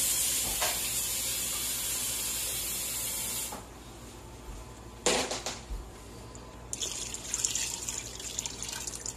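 Tap water running steadily for about three and a half seconds, a sharp knock, then water poured from a glass over chile sauce in a mesh strainer, splashing through the pulp to thin it out.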